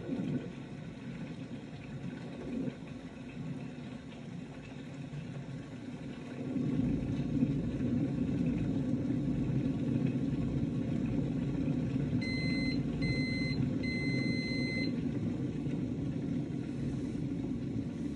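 Electric kettle heating with a low steady rumble that grows louder about six and a half seconds in. About twelve seconds in come three electronic beeps, the third one longer.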